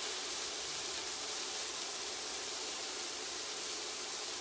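Chicken pieces frying in a hot frying pan, a steady, even sizzle.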